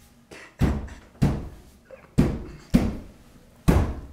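A fist pounding on a wall, about six heavy thumps at an uneven beat.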